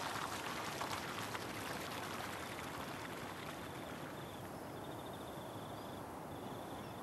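Shallow stream flowing over a stony bed edged with thin ice: a steady rush of water. From about four seconds in, faint high-pitched trilling chirps come in over it.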